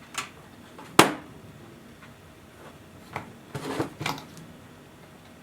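A multimeter and its test leads being handled and set up to measure current: a few sharp clicks and knocks, the loudest about a second in, with a brief rustle and another click near four seconds.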